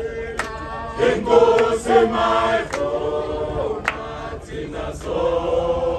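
A group of men singing together in several voices, with long held notes and a few sharp knocks in between.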